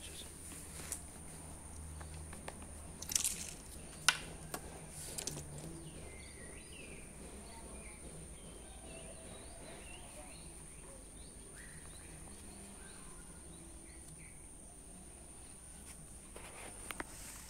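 Quiet outdoor ambience: a steady high-pitched insect drone under a low hum, faint bird chirps through the middle, and a few sharp taps in the first five seconds.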